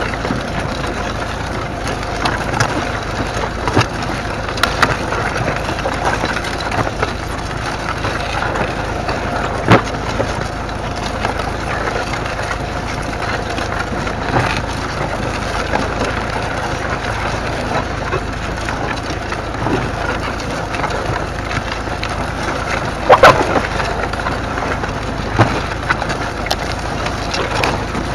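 Ferguson plough body cutting through straw stubble, with soil and stalks crackling, tearing and scraping against the steel in a steady rush. A few sharper snaps stand out, the loudest late on.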